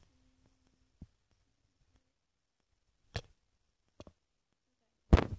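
Handling noise: a few short, sharp clicks and knocks about a second apart, with a louder knock near the end.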